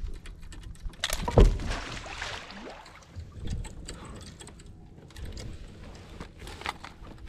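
Knocks, clicks and rattles of gear on a plastic fishing kayak as an angler brings a fish aboard and sits down, with one loud low thump about a second and a half in.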